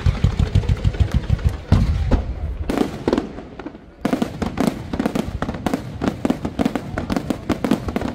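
Aerial fireworks display firing a rapid barrage: a fast run of deep booms for the first two seconds and a heavier burst near two seconds in, then dense sharp cracks and bangs, several a second.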